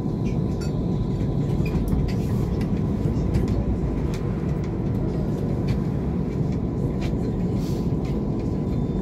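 Bombardier Incentro tram heard from inside while running: a steady low rumble from the ride, with scattered light clicks and rattles and a faint steady high whine.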